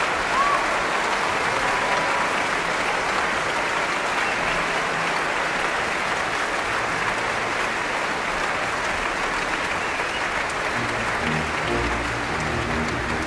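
Audience applause from a concert recording: a steady, dense clapping. Near the end, low orchestral notes come in under it.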